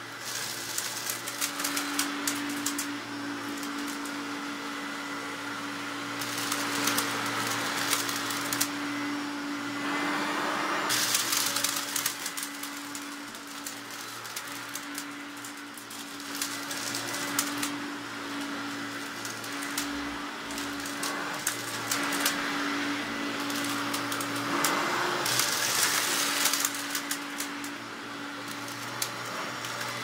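Hoover Sovereign (Turbopower) upright vacuum cleaner running on carpet: a steady motor hum under a rushing suction noise, with a stream of fine clicks and rattles as it picks up scattered crumbs. The noise swells and eases several times as the cleaner is pushed back and forth.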